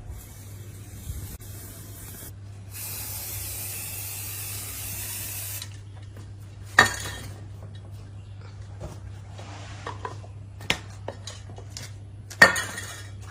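A spray nozzle hissing in two long bursts, the second about 3 seconds long and stronger. Then two sharp metallic knocks about five seconds apart, with a few light clicks between them, over a steady low hum.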